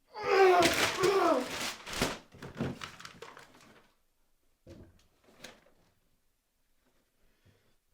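A loud wordless vocal cry from a person, falling in pitch, trailing off over a couple of seconds into a few broken, fainter sounds.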